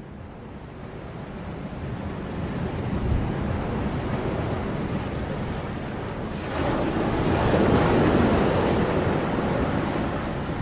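Ocean surf washing onto a sandy beach, with wind. The rushing swells to its loudest a little past the middle, as a wave breaks, then eases.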